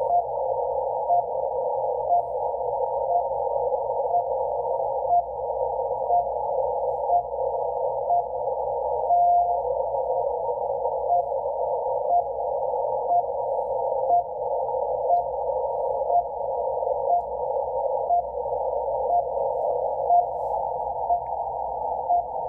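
RWM Moscow time signal on 9996 kHz heard through a shortwave receiver in CW mode on an end-fed wire antenna: short beeps once a second over narrow-filtered static hiss, with one longer beep about nine seconds in.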